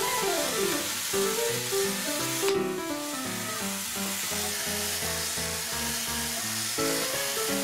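Background music, a melody of short notes with a quick gliding run at the start, over a steady hiss that drops out briefly a couple of seconds in.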